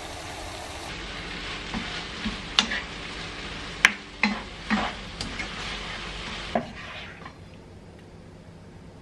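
Wooden spatula stirring and tossing saucy eggplant and shishito peppers in a nonstick wok over a steady sizzle, with several sharp knocks and scrapes of the spatula against the pan. The sizzling dies down about seven seconds in.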